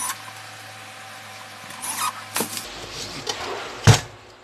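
Knocks and clicks as the metal-cased 2000 W power inverter is handled and turned around on the bench, the loudest a thump near the end. A steady low hum runs underneath and stops a little past halfway.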